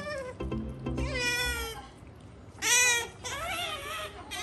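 Domestic cat meowing, begging for a treat held above it: three pitched, wavering meows, the loudest about two and a half seconds in.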